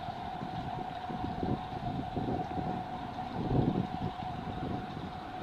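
Low, uneven rumbling of wind on the microphone, swelling strongest about three and a half seconds in, over a steady high-pitched hum.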